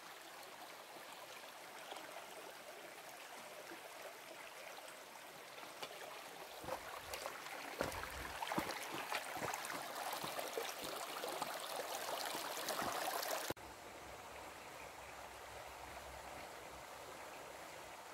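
Stream water flowing: a steady rushing that grows louder over several seconds, with scattered clicks. About three-quarters of the way through it cuts abruptly to a quieter steady rush.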